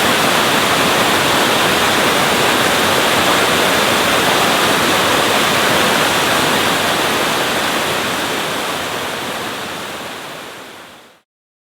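A waterfall's water rushing steadily and loudly, fading out over the last couple of seconds.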